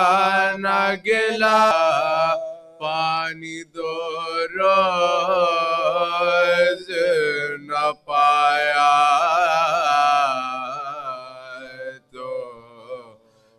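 Unaccompanied male voice chanting a marsiya, an Urdu elegy, in a melodic recitation. Phrases are broken by short pauses, with a long wavering held note past the middle.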